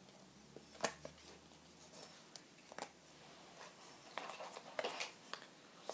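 Faint handling of paper cards or photo prints: a couple of sharp taps, then soft rustling in the second half.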